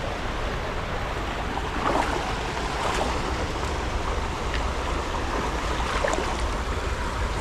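Steady rush of shallow river water flowing over rocks and a small weir, with a few faint splashes about two, three and six seconds in.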